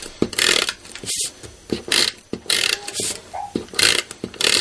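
Adhesive tape runner rolled across the back of a paper piece in about seven short, quick scratchy strokes, one every half second or so.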